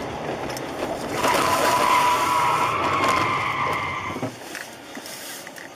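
Car tyres squealing under hard emergency braking: a loud wavering squeal starts about a second in, lasts about three seconds and cuts off, over steady tyre and road noise.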